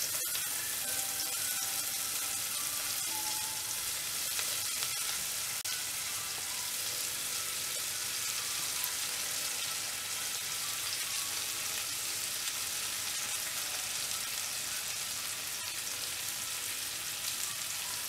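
Marinated dried anchovies (nethili karuvadu) sizzling in hot oil in a saucepan as handfuls are dropped in: a steady hiss with a few faint pops.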